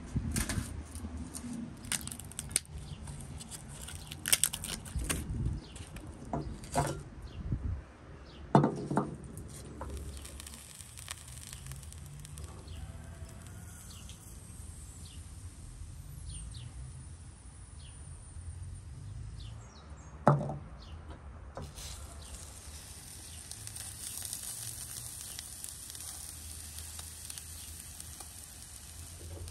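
Scattered knocks and clatter, two of them sharp and loud, then from about two-thirds of the way through a steady high hiss of fat sizzling on a whole beef leg roasting on a spit over hot embers.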